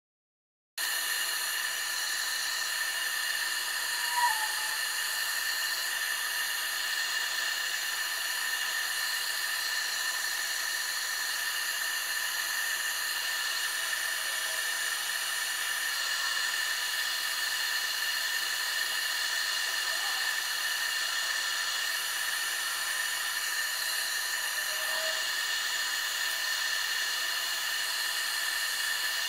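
Wood lathe running steadily with a high whine and hiss as a goblet turning spins on it and is worked by hand. The sound starts abruptly about a second in and then holds steady.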